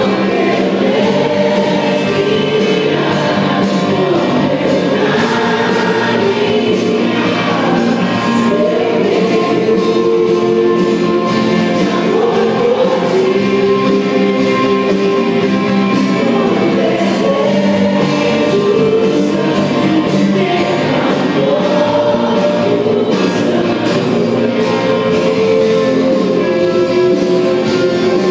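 Worship music: several voices singing together over a sustained instrumental backing.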